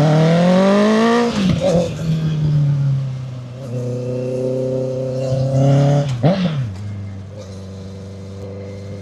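2014 Honda CB650F's inline-four engine, run through a custom exhaust built from a 2025 CBR650R system with a made-to-measure muffler, revved twice: the note climbs, drops back, climbs again and then falls to a steady idle near the end.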